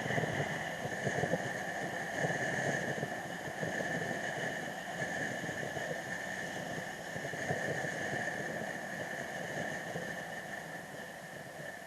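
Motorcycle on the move: engine and wind noise, with a steady high-pitched whine running through it, easing off near the end.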